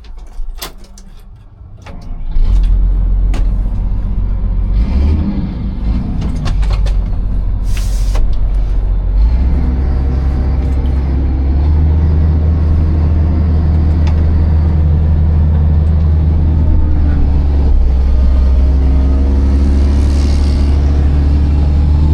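Hitachi 260 excavator's diesel engine running loudly and steadily. It comes in about two seconds in, after a few clicks and knocks, and its revs step up around nine and again around twelve seconds in.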